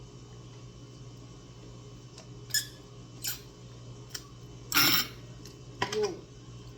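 Eating and table sounds: a few light clicks and taps, a louder short rustle just before the fifth second, and a brief vocal murmur near the end, over a steady low hum.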